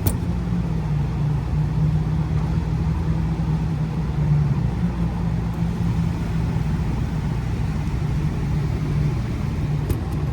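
Condensing gas furnace running with a steady low hum, with a sharp click right at the start and faint clicks near the end.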